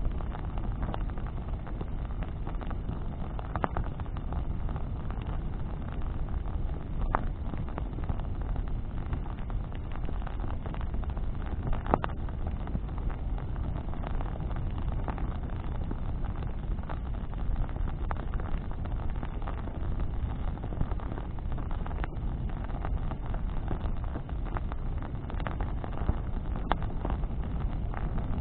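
Wood bonfire burning: a steady low rushing noise with now and then a sharp crackle or pop, the loudest about twelve seconds in.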